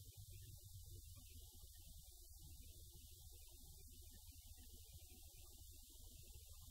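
Near silence: a faint steady low hum with light hiss.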